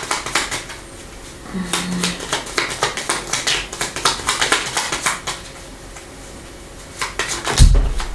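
A small deck of Lenormand cards shuffled by hand, a rapid run of light clicks and flicks of card on card, with a single low thump near the end.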